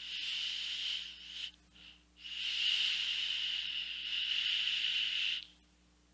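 Hissing draws on an e-cigarette: air rushing through the atomizer as the vaper inhales. One draw lasts about a second and a half; after a short break a longer one of about three seconds stops abruptly.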